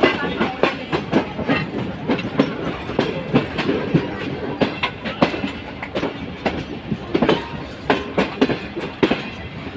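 Passenger train coaches in motion, heard from on board: wheels clattering over the rail joints as a run of sharp, unevenly spaced knocks over a steady rumble.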